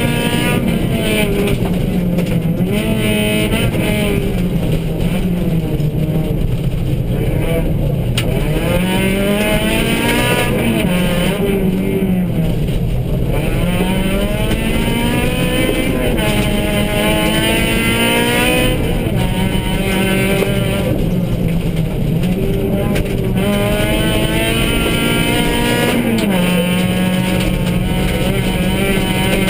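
Suzuki Swift rally car's engine heard from inside the cabin, pulling hard at full throttle, its note rising and falling again and again as the car accelerates, shifts gear and lifts for corners.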